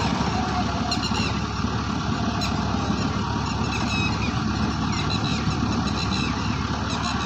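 Heavy diesel engine of a JCB backhoe loader running steadily as it works its arm and bucket through water hyacinth, a continuous low rumble.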